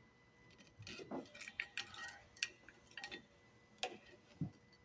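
Irregular metallic clicks and short scrapes of a tool prying against the pads of a Brembo four-piston brake caliper, pushing the pistons back before the pads come out.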